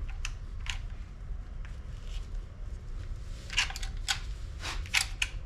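Light metallic clicks and taps of a cam gear and timing chain being handled and fitted by hand, with a cluster of sharper clicks about three and a half to five seconds in, over a low steady hum.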